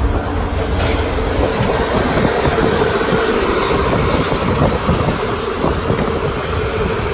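Steady, loud vehicle rumble and road noise, heard from inside a car's cabin beside a flatbed tow truck, with a steady hum running through it.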